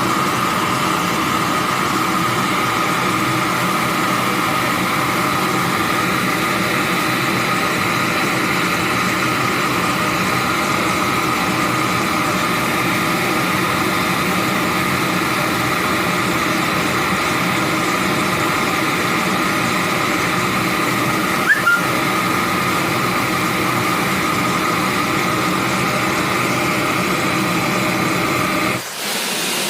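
Gas brazing torch burning steadily, a loud even sound with a few steady tones in it, which cuts off abruptly near the end. A brief click about two-thirds of the way through.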